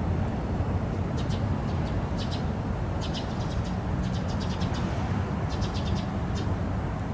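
Small birds chirping in short, quick clusters of high notes over a steady low rumble of distant traffic.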